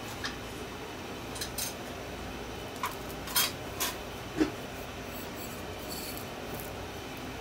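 A few light clicks and taps of kitchenware being handled, the sharpest about three and a half seconds in and followed by a soft low knock, over a steady background hiss.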